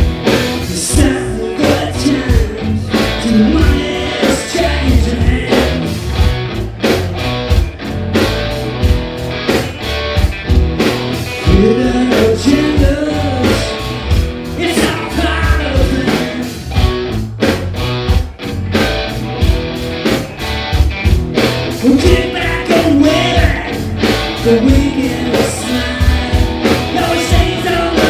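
Live rock band playing: a male lead singer over electric guitar, electric bass and a drum kit.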